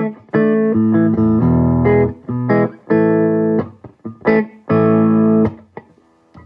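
Electric guitar played through a small 18-watt tube amp head: a series of held chords with short breaks between them, falling quiet near the end.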